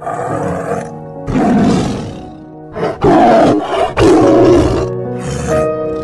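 Tiger roaring: about five loud, rough calls, each under a second long, over background music.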